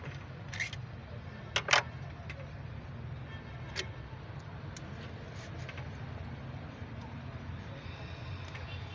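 A few sharp metal clinks of tools and engine parts being handled, the loudest a quick double clink nearly two seconds in, over a steady low hum.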